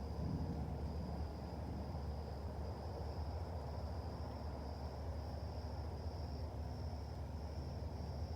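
Steady high-pitched insect chorus trilling with a slight pulse throughout, over a constant low rumbling background noise.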